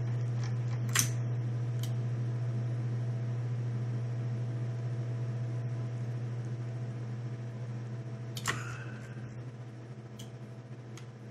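Steady low hum of a computer fan, with a few short sharp clicks, one about a second in and another about eight and a half seconds in.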